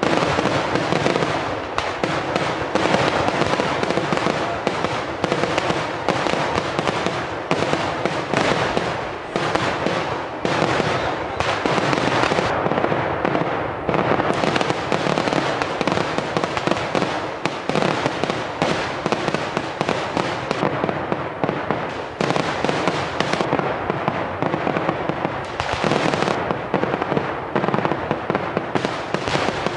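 A Kerala temple-festival fireworks barrage: firecrackers bang in a dense, continuous run, so close together that they merge into one long rattle.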